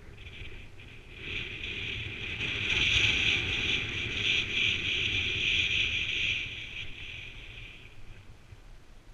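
Skis sliding and scraping over packed snow on a downhill run: a hissing swish that builds about a second in, is loudest in the middle and fades away near the end. A low wind rumble on the microphone sits underneath.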